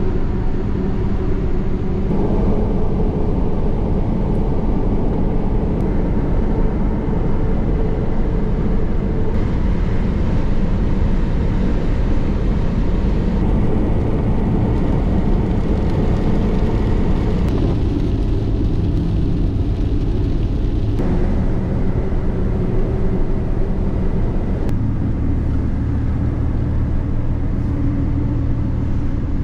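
Steady engine, tyre and wind noise heard inside the cab of a 1999 Ford Ranger pickup driving at road speed. The tone of the rumble changes abruptly several times.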